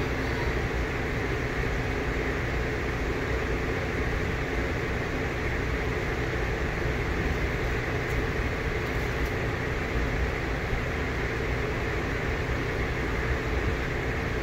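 Steady low rumble with an even hiss over it, unchanging throughout, like a running vehicle heard from inside or a machine hum.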